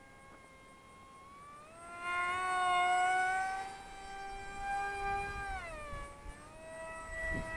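Zeta Z84 flying wing's electric motor and propeller whining in flight, a high multi-note whine that rises in pitch and grows louder about two seconds in, holds, then drops in pitch about six seconds in.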